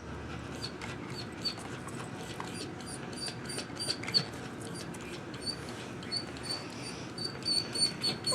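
Pet lovebirds chirping: short high-pitched peeps repeated again and again, coming more often in the second half.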